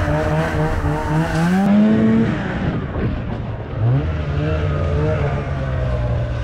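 Arctic Cat 370 snowmobile's two-stroke engine running under throttle through deep snow. Its pitch rises about two seconds in, drops away briefly near three seconds, then climbs again and holds steady.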